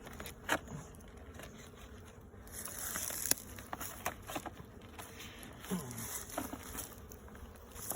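Honeybees buzzing around an opened hive, with scattered clicks and scrapes as the hive's parts are pried apart.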